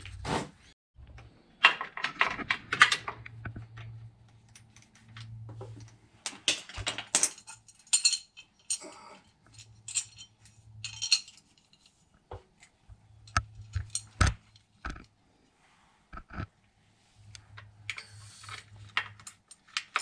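Scattered metallic clinks, taps and rattles of a wrench and small bolts and brackets being handled and fitted at a truck's transmission pan, in short irregular clusters.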